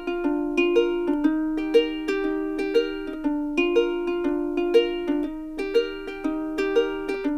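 Background music: a gentle plucked-string melody, light repeated notes at an even pace.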